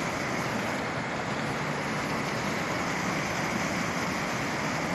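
Steady outdoor background noise picked up by a phone microphone: an even hiss with no distinct events.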